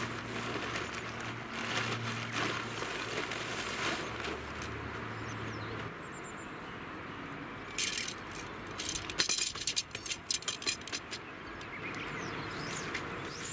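Nylon tent fabric rustling as a large dome tent is shaken out and spread on a ground sheet. After a short burst about eight seconds in, there is a quick run of clinks and clacks from about nine to eleven seconds as the tent poles are pulled out and snapped together.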